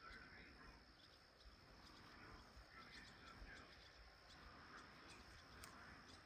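Near silence: faint outdoor evening ambience, with a steady faint high hiss and a few faint scattered ticks.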